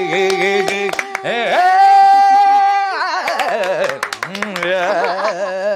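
A man sings a Malayalam song with no instruments, holding one long note from about one and a half to three seconds in, while several people clap along.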